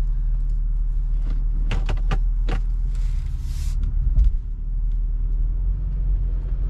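Car engine running with a steady low rumble. Several sharp clicks come about a second in, a short hiss follows about three seconds in, and a thump comes just after.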